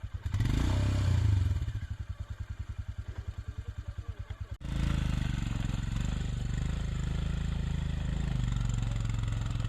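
Motorcycle engine running at low revs on a rough uphill climb, with a regular fast pulsing beat for a few seconds. The sound breaks off suddenly about four and a half seconds in, and a steadier engine sound follows.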